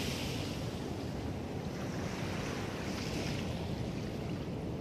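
Small waves washing on a sandy beach, the hiss swelling about twice, over a steady low rumble of wind on the microphone.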